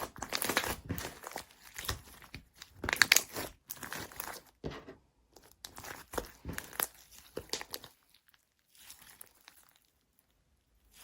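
Slime being squeezed and worked by hand, making irregular crinkling, crackling rustles. The noises come in clusters, busiest in the first half, and thin out to faint bits after about eight seconds.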